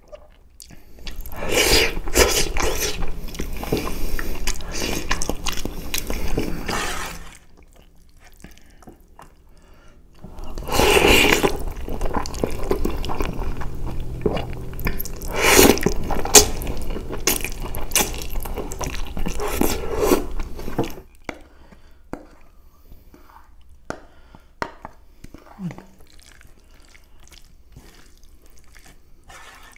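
Loud, wet slurping of spaghetti bolognese noodles, in two long stretches of several seconds each. After them come quieter wet mouth clicks of chewing.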